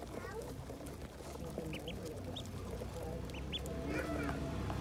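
A crowd of ducklings peeping: many short, high chirps here and there, over a low steady hum.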